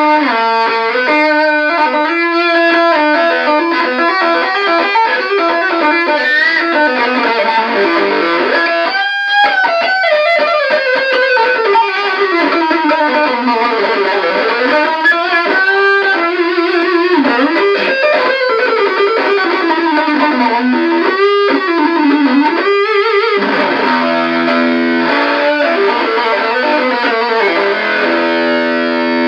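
Electric guitar played through an Electro-Harmonix Muff Fuzz-type op-amp fuzz pedal into a 1959 Guild 66-J valve amp: a fuzzy lead line of sustained notes with bends and slides, turning to chords for the last several seconds.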